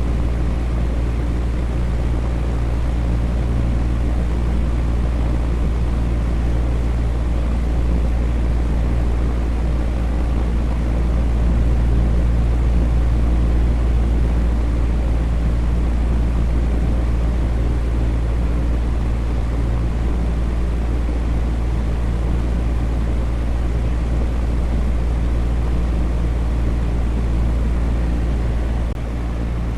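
Electric fan running steadily: a constant low hum under an even rush of air, dipping slightly just before the end.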